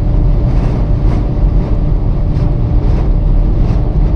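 A car driving through strong wind: a loud, steady low rumble of wind and road noise, with a faint steady engine hum.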